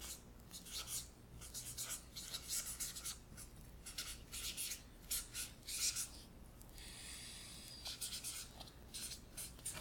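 Marker writing on a whiteboard: a run of short, irregular scratchy strokes, with one longer, steadier stroke about seven seconds in.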